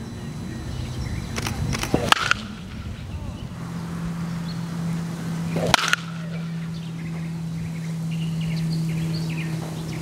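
Baseball bat cracking against a pitched ball in batting practice, two hits about four seconds apart, the first about two seconds in. A steady low hum sets in between them, and birds chirp faintly near the end.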